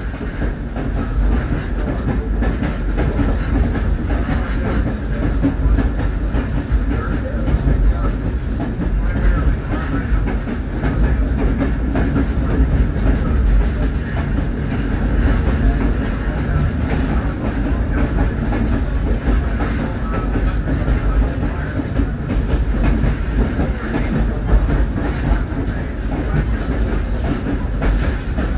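Caboose rolling along the track as it is shoved by a locomotive: a steady rumble of steel wheels running on the rails.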